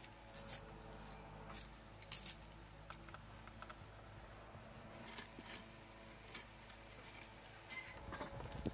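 Garlic cloves peeled by hand: faint papery crackles of the skins and scattered light clicks, spread unevenly.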